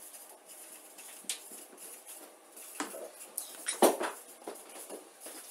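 Felt-tip marker squeaking and scratching across flipchart paper in short, irregular strokes, the loudest about four seconds in.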